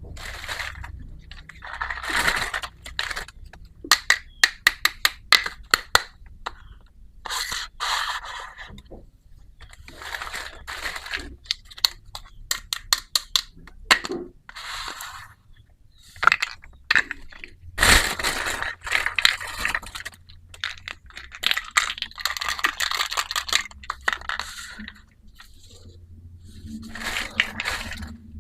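Small plastic pieces of a miniature toy kitchen set being unpacked and handled: rustling and scraping of packaging, with a quick run of sharp clicks a few seconds in and a single knock about two-thirds of the way through.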